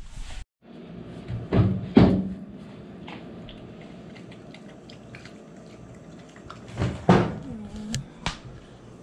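Small clicks and knocks of a mini Australian shepherd puppy eating kibble from a stainless steel bowl, with a few louder knocks and clatters about two seconds in and again near the end.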